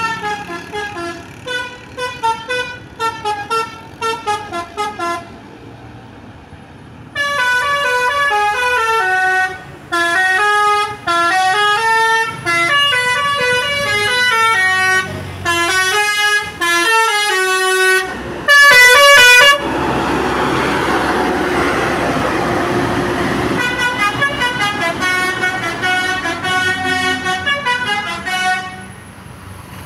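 Telolet musical bus horn (Basuri V3) playing a melody of quick stepping notes. The notes pause briefly, then come back louder with longer held notes, the loudest just before twenty seconds in. A few seconds of rushing noise follow, and then the quick tune plays again near the end.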